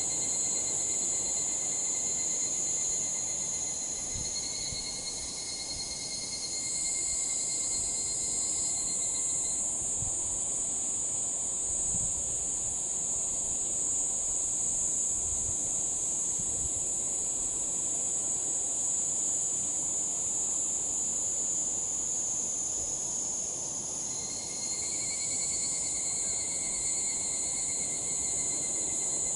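Higurashi cicadas (Tanna japonensis) calling in an evening chorus: a steady, high-pitched insect shrill. A thinner, lower tone under it fades out about ten seconds in and comes back near the end.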